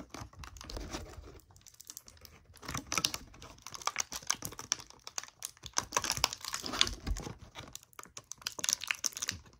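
A small toy being worked out of its toy packaging by hand: irregular clicks, taps and light crinkling as the packaging is pulled and pried at, the toy being hard to get out.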